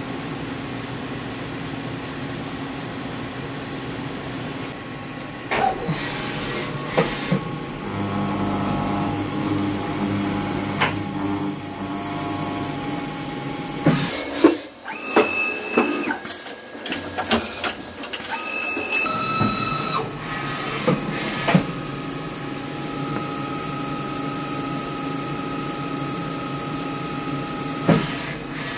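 Hurco 5-axis CNC machining center running its program: a steady machine hum broken by clicks and short mechanical whirs as the axes move. A steady, higher whine comes in about two thirds of the way through.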